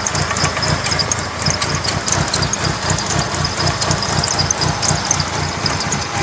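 1997 Mitsubishi Eclipse RS's 2.0-litre four-cylinder engine idling unevenly, with light ticking over a low, pulsing exhaust beat: a rough idle whose cause the owner doesn't know.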